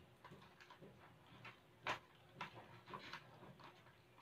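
Faint, scattered clicks and taps of small skincare bottles being handled and set into a cardboard box insert. The clearest click comes about two seconds in.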